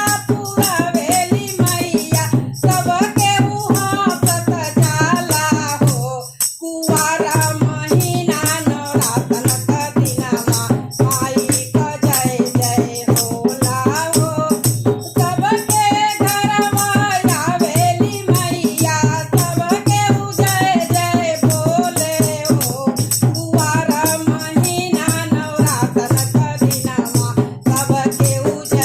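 A woman singing a Bhojpuri devotional folk song to the Mother Goddess (a Navratri Devi geet), over a steady rattling percussion beat. The music breaks off briefly about six seconds in.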